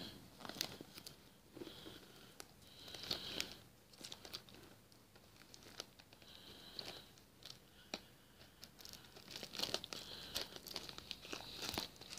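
Plastic wrapping on a DVD case crinkling and tearing in short, irregular bursts as it is worked off by hand, with a few sharp clicks; the bursts come closer together near the end.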